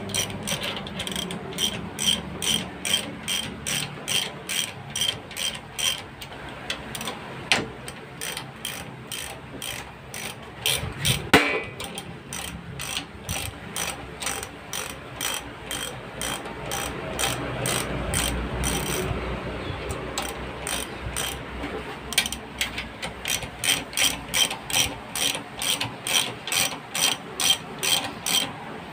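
A socket ratchet wrench clicking as it is swung back and forth to turn the threaded rod of a motorcycle shock spring compressor, opening the compressor to free the rear shock's spring. The clicks come in steady runs of about three a second, with a break a little after the middle and one louder knock about eleven seconds in.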